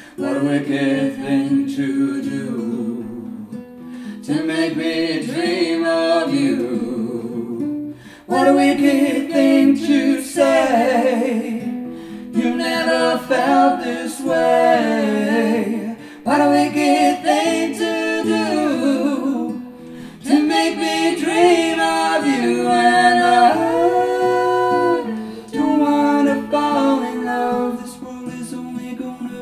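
A man and a woman singing a slow ballad together, accompanied by a strummed nylon-string classical guitar.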